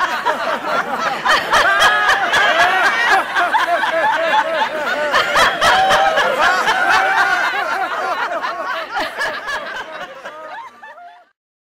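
A crowd of people laughing loudly together on cue in a group laughter exercise, many voices overlapping. The laughter fades out over the last few seconds and ends in silence.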